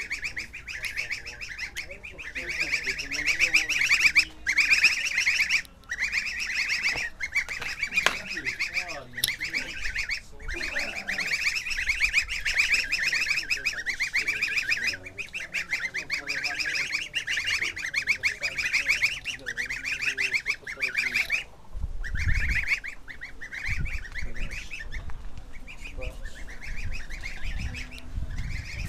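A few domestic white geese honking over and over, rapid calls following one another with only brief pauses.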